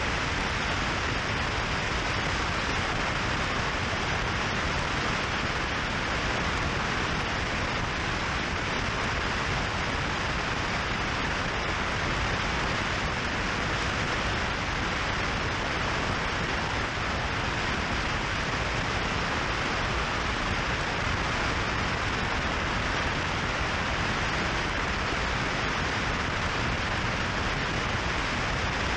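Steady rush of wind on the microphone of a camera mounted on a moving motorcycle, mixed with tyre and road noise, even and unbroken throughout.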